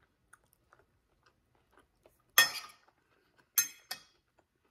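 Eating noises from a fried, cornmeal-coated salmon croquette at a plate: a few faint small clicks, then two sharp, crisp sounds about a second apart.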